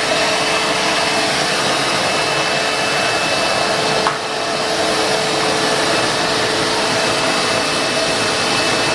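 Shop Vac 16L wet/dry vacuum cleaner running steadily: an even rush of air from its motor with a steady whine. There is one short click about four seconds in.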